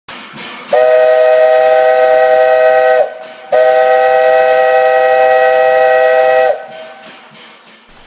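Locomotive chime whistle sounding a chord of several notes in two long blasts, the first about two seconds and the second about three. Each blast sags slightly in pitch as it cuts off. A rush of air hiss comes before the first blast.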